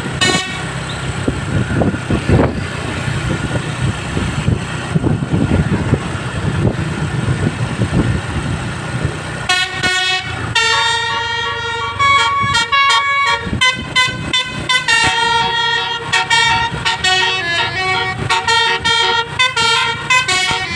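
Bus engine and road noise for about the first half, then a multi-tone basuri 'telolet' bus horn playing a tune of stepped notes, which runs on with short breaks between phrases.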